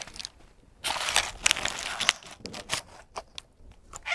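Paper wrapper around a piece of crispy fried food crinkling and crackling as it is handled, a quick run of crackles lasting about two seconds.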